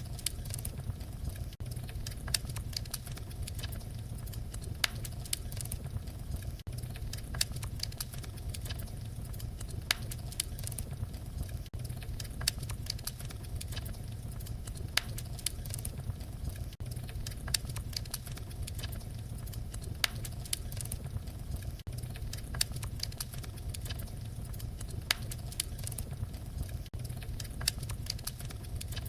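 Fireplace fire crackling: irregular sharp pops and snaps over a steady low rumble of burning flames.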